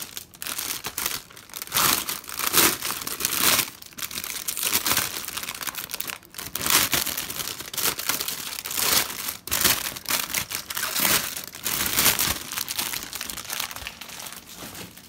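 Clear plastic wrapping crinkling and rustling in irregular bursts as it is pulled off a helmet by hand; it dies away near the end.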